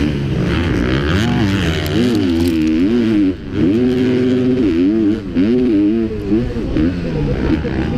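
Motocross bike's engine heard on board, revving up and down again and again as the rider works the throttle and shifts, with short throttle-offs about three seconds in and again after five seconds.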